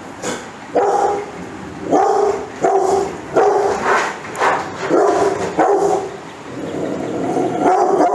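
Adult female Rottweiler barking repeatedly, about ten short barks spaced roughly half a second to a second apart.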